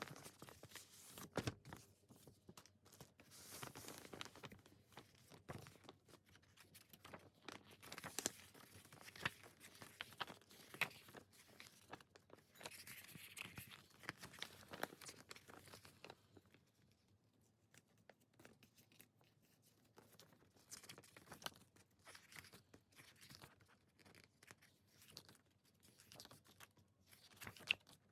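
Quiet unwrapping and handling of K-pop album packaging: plastic wrap tearing and crinkling, with many small clicks and knocks, busier in the first half and sparser later.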